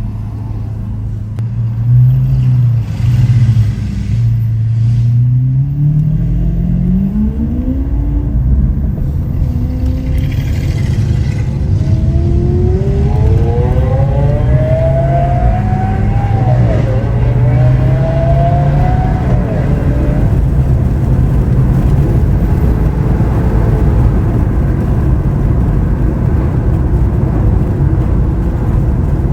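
Lamborghini Aventador SV's V12 accelerating: the engine note climbs in pitch, drops sharply at a gear change partway through, climbs again, then settles into steady driving noise at speed.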